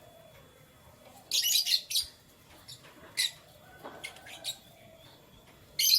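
Canaries chirping in short, sharp, high-pitched bursts: a quick cluster about a second and a half in, single chirps around three and four and a half seconds, and another burst near the end.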